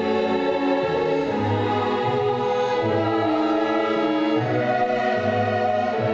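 Mixed choir singing held chords with a symphony orchestra accompanying, the low notes changing about once a second.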